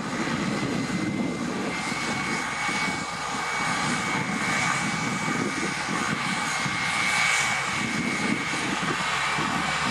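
Cessna 208 Caravan's single Pratt & Whitney PT6A turboprop running at takeoff power. It is a loud, steady propeller and engine noise, with a thin high whine held steady over it from about a second and a half in.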